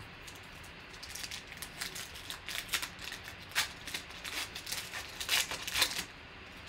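The foil wrapper of a Panini Optic basketball card pack being torn open and crinkled by hand: a rapid run of sharp crinkles and crackles that starts about a second in and stops shortly before the end.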